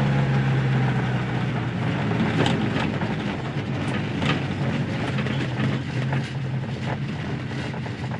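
Heard from inside the cabin, a 1965 Mini Cooper S's BMC A-series four-cylinder engine runs at a steady hum under way, with tyre and road noise, easing off slightly toward the end.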